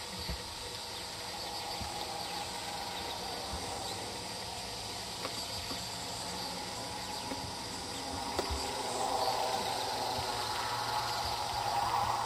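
Steady outdoor background noise with faint insect buzzing, a few soft low thumps, and a slight swell near the end.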